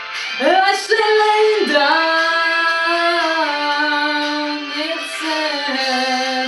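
A woman singing a long held line over pop backing music. Her voice swoops up about half a second in, then holds sustained notes that step down in pitch.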